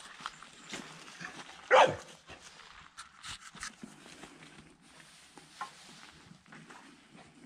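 A dog barks once, sharply, about two seconds in, followed by faint scattered clicks and rustling.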